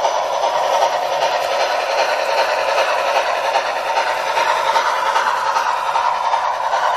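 Bachmann HO-scale 2-8-0 model steam locomotive running, its Sound Value decoder playing steam-engine running sounds through the model's small onboard speaker, along with the model's running noise on the track. A steady, thin sound with no bass.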